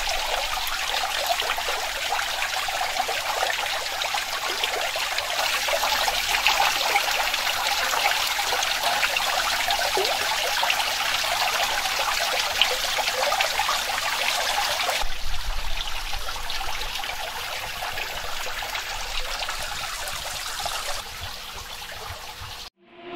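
Water trickling and splashing steadily as it falls in thin streams from a decorative fountain. It thins a little past the middle, drops lower near the end and cuts off just before the end.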